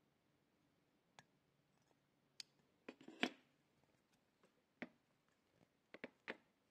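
Sparse, faint clicks and taps of fly-tying tools and fingers working at the vise, with a louder cluster of clicks about three seconds in.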